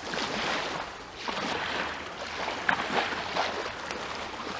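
Small waves washing up a sandy shore, swelling and easing, with wind on the microphone. A few short clicks or knocks come about two-thirds of the way through.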